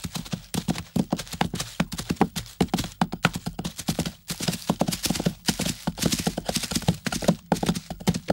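Zebras eating leafy greens from a wooden feeder trough: close, dense, irregular crunching and tearing, several bites a second.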